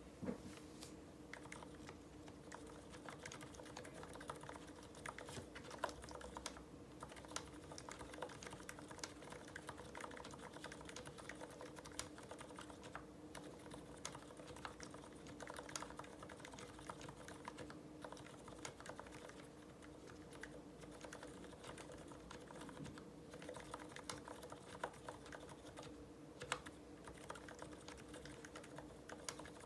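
Typing on an IDOBAO ID80 V2 mechanical keyboard with lubed Cherry MX Silent Red switches and GMK doubleshot ABS keycaps: a quiet, continuous run of irregular keystroke clicks.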